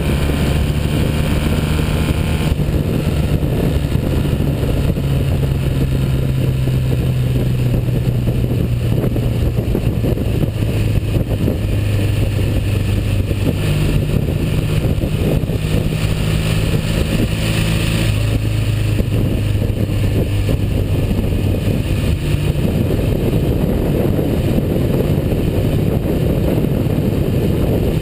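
1959 Norton Dominator 600 parallel-twin engine, freshly overhauled, running steadily under way. Its pitch shifts several times as the speed changes.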